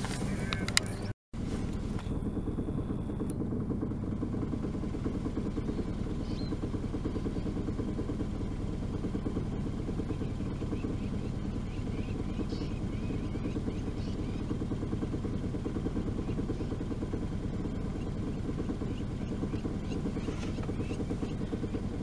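Vehicle engine running steadily at idle, a low even rumble, cut off by a brief silent gap about a second in. Faint high chirps sound around the middle.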